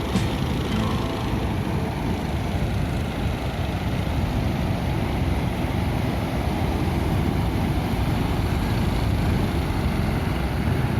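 Steady roar of ocean surf breaking on the beach, a continuous rumbling wash strongest in the low end.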